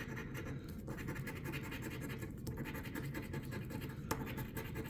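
Scratch-off lottery ticket being scratched, the coating rubbed off in quick, steady back-and-forth strokes, with one sharp tick about four seconds in.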